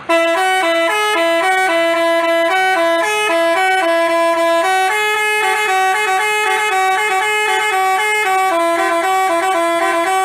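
Basuri telolet multi-tone bus horn playing a fast melody of short, stepped notes. It cuts in abruptly and plays on steadily and loud.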